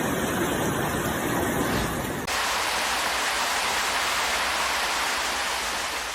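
Steady rushing of water, a dense even hiss, with an abrupt change to a brighter, thinner rush about two seconds in.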